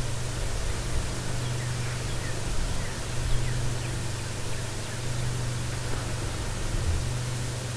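Steady hiss with a low hum under it, and a few faint, short high chirps scattered through the first six seconds; no loud killdeer call.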